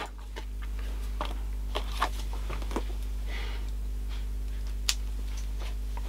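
Quiet bench handling of a two-part epoxy (Araldite) syringe and a piece of card: a few light clicks and one brief rustle, over a steady low hum.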